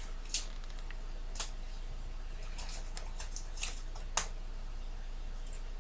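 Paper towel crinkling in short, scattered rustles as it is pressed and wrapped around a block of tofu, over a low steady hum.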